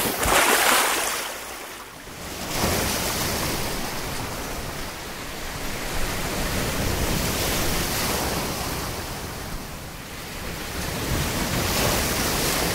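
Sea waves breaking and washing in shallow surf, a steady rush that swells and eases in slow surges.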